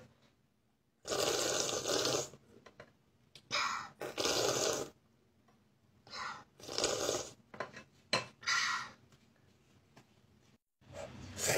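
Child slurping millet porridge from a bowl and spoon: a series of noisy slurps, each a second or less, with short pauses between them.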